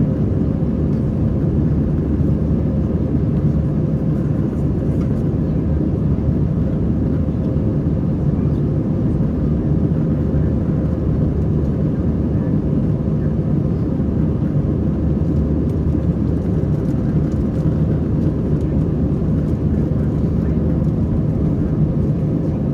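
Cabin noise of an Airbus A321 airliner: a steady, even rumble of engines and airflow, with a faint steady hum above it.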